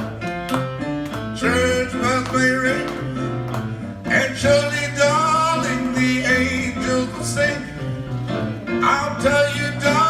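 Live band music with guitar, the start of a doo-wop song: short plucked notes, then from about a second and a half in fuller, sustained melody lines.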